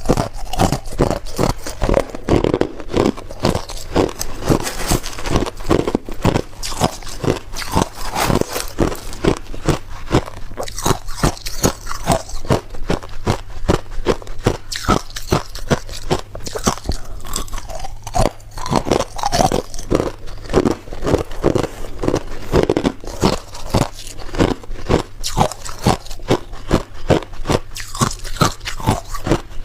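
Ice being bitten and chewed, a steady run of sharp crunches at about two to three a second.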